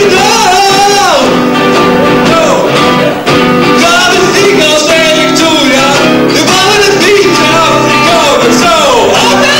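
Live blues song: a man singing into a microphone over acoustic guitar.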